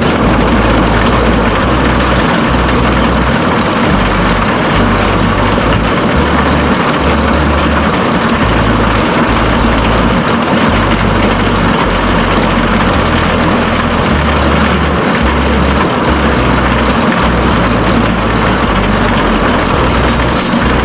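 Tractor engine running steadily under load, driving a grain cart's unloading auger as wheat is unloaded.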